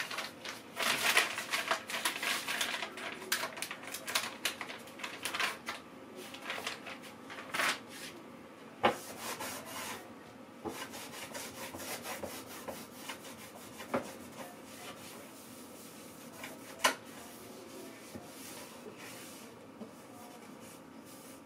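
Things being handled and arranged inside a wooden kitchen drawer: rubbing, rustling and rapid light clicks for the first several seconds, then quieter rustling with a few single knocks.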